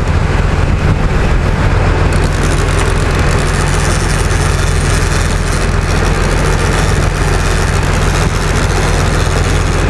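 Boat engine running steadily with a low drone, under a constant rush of wind and water as the hull runs through the chop.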